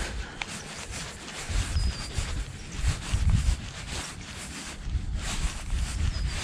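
Gusts of wind rumbling on an action camera's microphone, rising and falling unevenly, with a small click about half a second in and a brief high chirp about two seconds in.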